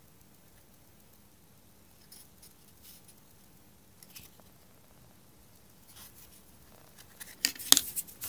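Small hard objects handled by hand: quiet at first, then light clicks and scrapes, and a louder clatter of sharp clinks near the end. The rotary tool is not running.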